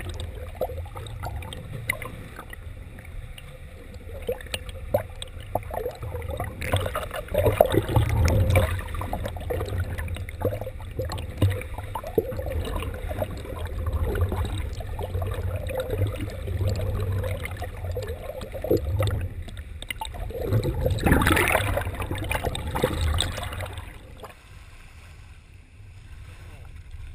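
Muffled underwater water noise heard through a camera's waterproof housing held just below the sea surface: a low rumble with scattered small clicks and sloshing. A louder rush of water comes about 21 seconds in, after which it goes quieter as the camera comes up out of the water.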